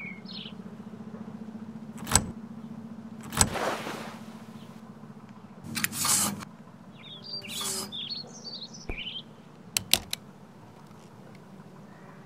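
A few separate sharp clicks and knocks from an RGK Tiga FX folding wheelchair being taken apart and folded: the backrest folding down onto the seat and a quick-release wheel being handled, with a short rustling burst about six seconds in. Birds chirp around the middle, and a steady low hum runs underneath.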